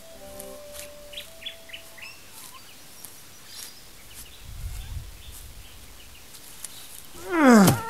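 Birds chirping, with the last notes of a soundtrack melody in the first two seconds and a dull low thump about halfway. Near the end comes a loud human yell sliding steeply down in pitch, the loudest sound here.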